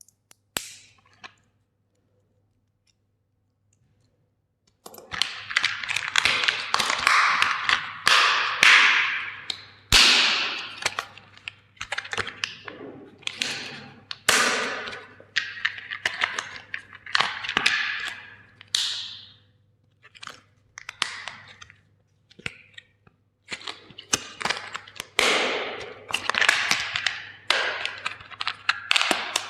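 Plastic toys being smashed with a hammer: after a couple of light clicks and a short pause, a dense run of sharp cracks and crunches of breaking plastic begins about five seconds in and keeps going in repeated bursts.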